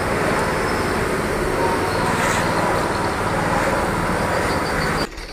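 A machine running steadily: a dense, even noise with a low hum under it, cut off abruptly near the end.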